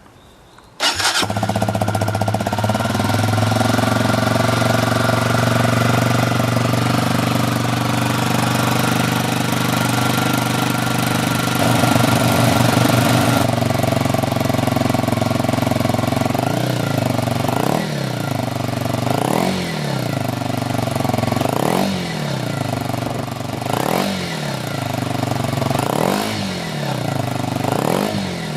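Kawasaki KLX125 single-cylinder four-stroke engine breathing through a DELTA Barrel 4-S aftermarket silencer and torque header pipe. It starts about a second in and idles steadily. In the last dozen seconds the throttle is blipped about eight times, each rev rising and falling, roughly one every second and a half.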